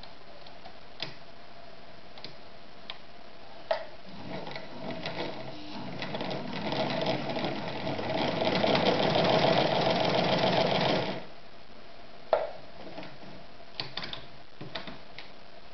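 Podolsk 142M electric sewing machine stitching a test seam while the upper thread tension is being adjusted. It starts about four seconds in, picks up speed, runs for about seven seconds and stops suddenly. One sharp click and then a few lighter clicks follow.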